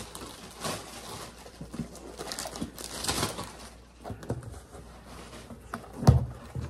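Handling of a white cardboard mailer box: soft rustling and light taps of cardboard being turned over and its flaps worked, with a louder thump about six seconds in.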